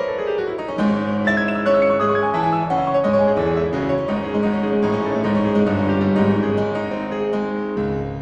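Background piano music: a melody of many notes over sustained low chords, following a descending run.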